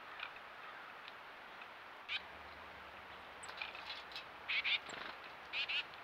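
Small songbird calling at a feeder: short calls in quick groups of two and three, about four and a half and five and a half seconds in, with a couple of thin high chirps and a single click about two seconds in.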